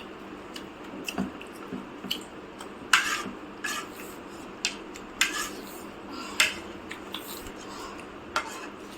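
Cutlery clinking and scraping against plates and bowls as people eat, in short irregular clicks every half second to a second.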